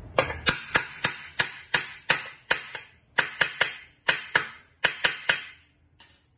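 Hammer striking metal at the exercise bike's crank, about eighteen sharp ringing knocks at roughly three a second, a stage in knocking the crank bearing out or in. The last knock, about six seconds in, is weaker.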